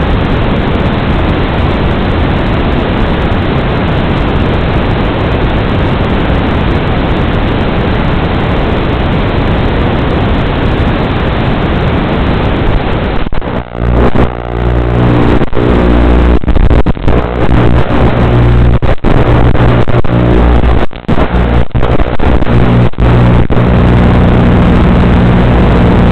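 Loud hiss of static from an analog FPV video receiver with no signal. About halfway through, the link locks on and the drone's onboard camera microphone carries the steady hum of its motors and propellers, broken by frequent brief dropouts in the signal.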